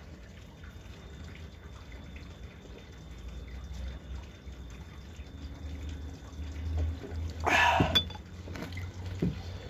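Water overflowing from a rooftop water tank, dripping and trickling steadily. About seven and a half seconds in comes a short, louder burst of noise.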